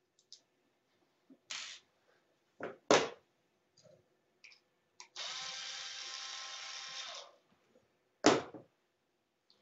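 A cordless power driver runs steadily for about two seconds, backing out a bolt on an LED strip bracket, among clicks and knocks of tools and small parts being handled, with a sharp knock about three seconds in and another near the end.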